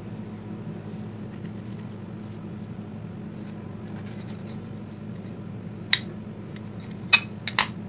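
A kitchen knife cutting through a layered sandwich on a plastic tray: faint scratchy sawing over a steady low background hum, with a few sharp clicks near the end.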